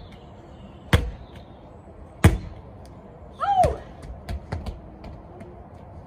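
Two sharp thuds about a second apart from a rubber medicine ball being thrown, caught and dropped, then a brief cry midway and a few light taps of trainers running on wooden decking.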